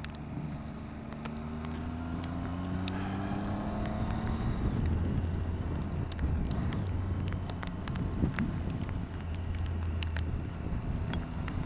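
Adventure motorcycle engine pulling uphill, its pitch rising steadily for the first four seconds or so as it accelerates, then running on under load with wind noise on the microphone.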